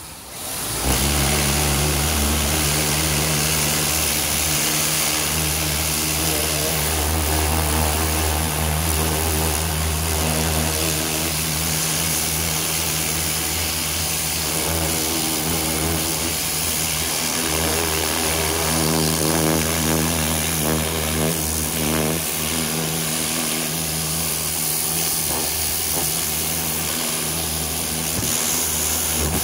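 Greenworks 2000 psi electric pressure washer running, its motor and pump humming steadily under the hiss of the water jet spraying the boat. It starts about a second in.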